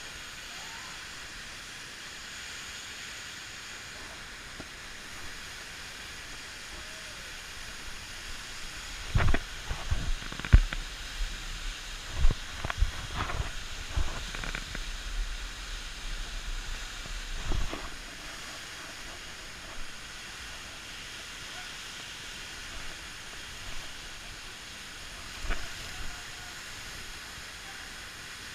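Steady hiss of a waterfall's rushing water. A cluster of loud low thumps and knocks on the microphone comes in the middle, with a couple more later.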